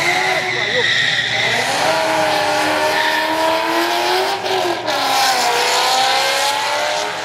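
Ford Mustang drag cars launching off the line and accelerating hard, the engine note climbing, dropping at a gear shift about five seconds in, then climbing again. A high steady whine is heard at the start.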